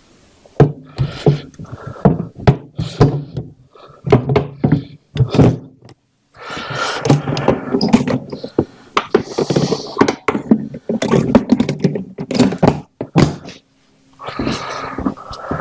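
Hard saddlebag of a Harley-Davidson Dyna Switchback being fitted back onto its mounts and latched: a run of hard thunks, knocks and clicks, with a couple of short pauses.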